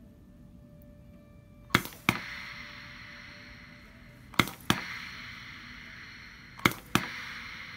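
Hibar piston filling pump dispensing three small doses about two and a half seconds apart, each stroke a pair of sharp clicks about a third of a second apart followed by a fading hiss. The pump is set to about 5% of its stroke length, delivering a fraction of a millilitre of water per stroke.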